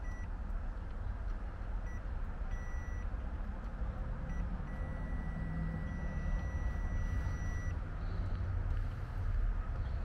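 A clamp meter's continuity beeper sounds a high steady tone as the test leads touch the wiring: several short beeps in the first few seconds, then one long beep of about three seconds. The beep signals an unbroken path, here used to trace a direct short in the AC's low-voltage wiring. A steady low rumble runs underneath.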